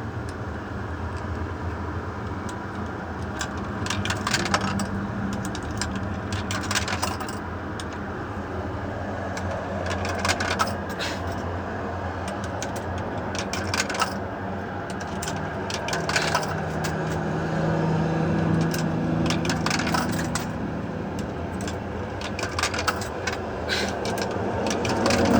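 Coins clinking as they are fed into a payphone's coin slot and drop through its mechanism, a string of scattered short metallic clicks over a steady low hum.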